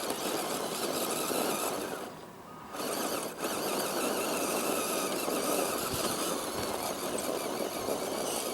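Scale RC rock crawler driving over the trail, its electric motor and gears whining over the crunch of the tyres, cutting out briefly about two seconds in.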